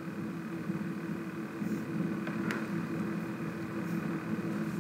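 Steady low hum of background room noise, like a fan or mains hum, with a faint click about two and a half seconds in.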